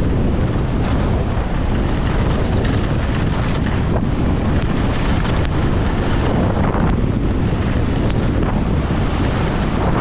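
Heavy wind buffeting the camera microphone from skiing downhill at 60 to 70 km/h, steady throughout, with the hiss of skis running over hard-packed snow.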